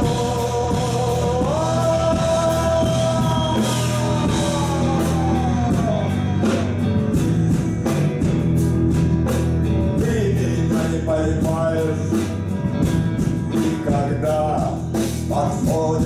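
Live rock band playing an instrumental passage: drums and bass under an electric guitar lead of long held notes that bend in pitch, giving way to shorter phrases in the second half.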